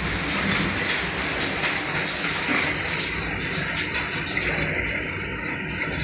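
LG top-load inverter direct-drive washing machine in its wash cycle: water sloshing and churning steadily in the full tub as it agitates. There is no metal-on-metal knocking from underneath, the fault that had shown up when the tub held too little water.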